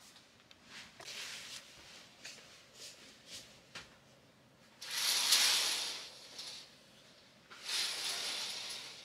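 Curtains being drawn along their rail: two rushing swishes, the first about five seconds in and the second near the end, after a few soft rustles and taps.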